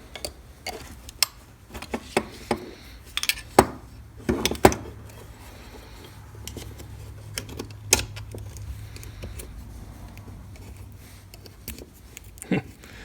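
Metal parts of an HES 5000 electric strike and small hand tools clicking and clanking against each other as the strike is worked apart. The sharp clicks and knocks come thickest in the first five seconds, with a few single clicks later.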